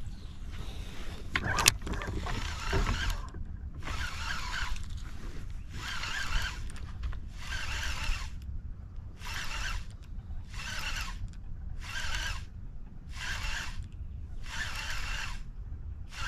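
Baitcasting reel cranked in short bursts, each a brief whir of the gears with a pause between, about one burst every second or so: a stop-and-go retrieve of a lipless crankbait. A sharp click comes about a second and a half in.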